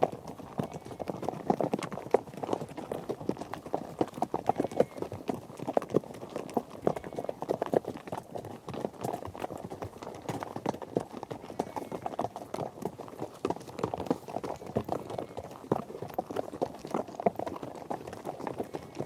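Hoofbeats of galloping horses: a dense, steady run of overlapping hoof strikes on the ground.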